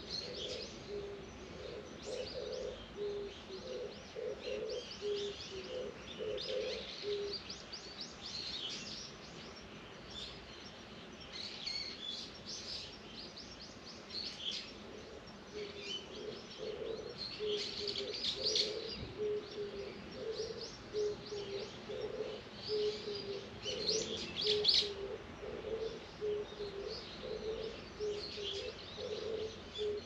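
Small birds chirping and twittering in short high calls, with a low two-note call repeated about twice a second through much of the time that stops for several seconds in the middle.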